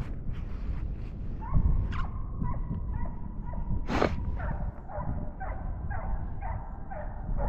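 Hunting hound baying on a coyote's track: a long drawn-out note, then a quick run of short bawls about two to three a second. A sharp rustle about four seconds in.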